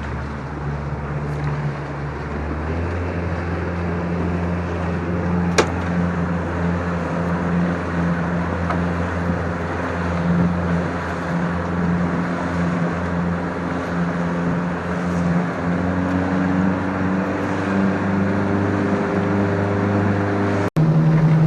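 Fishing boat's engine running steadily under way, with water and hull noise, its pitch creeping up near the end. A single sharp knock about five seconds in.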